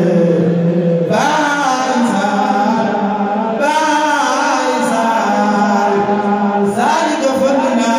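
A man chanting a Mouride khassida into a microphone, in long ornamented held notes, with new phrases entering about a second in, midway and near the end over a steady low held tone.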